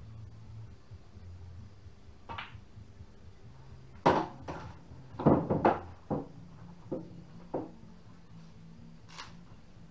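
A soft click of a pool cue striking the ball about two seconds in, then a cluster of sharp wooden knocks and clacks, followed by a few single knocks, evenly spaced like footsteps on a wooden floor.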